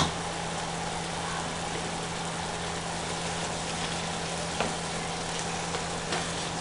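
Diced pork and onion sizzling steadily in a frying pan, over a steady low hum. Later on a wooden spoon stirs the pan, giving a few light knocks against it.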